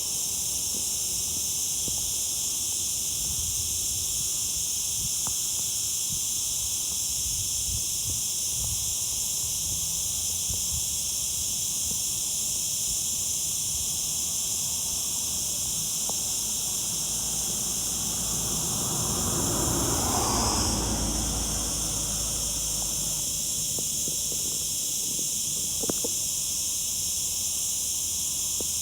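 Cicadas buzzing in a steady, continuous high-pitched drone. About two-thirds of the way through, a brief rush of lower noise swells and fades under it.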